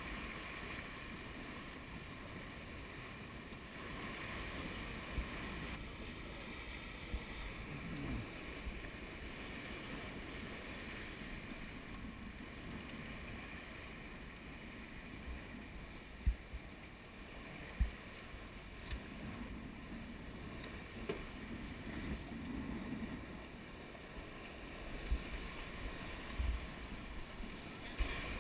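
Sailboat hull cutting through chop under spinnaker, the bow wave rushing and hissing along the side, with wind buffeting the microphone. A few dull thumps come through, mostly in the second half.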